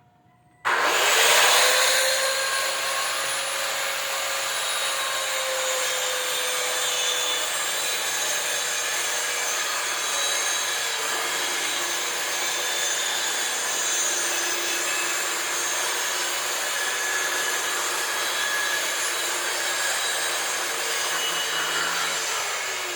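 An electric power-tool motor switches on under a second in and runs steadily with a high whine, starting to wind down near the end.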